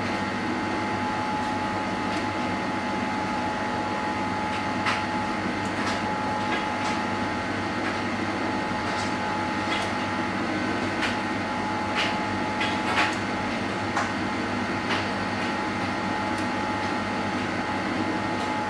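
Bosch SGS3042GB/01 dishwasher running on its Intensive 65 °C programme, very noisy. A steady hum carries a constant whine, with scattered sharp ticks, the loudest a pair about 12 and 13 seconds in.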